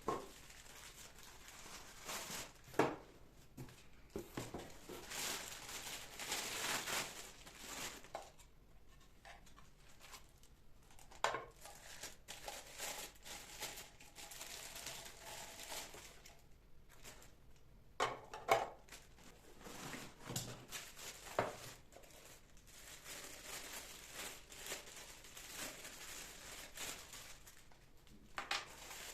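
Household handling sounds: packaging crinkling and rustling, with a few sharp knocks of things being set down.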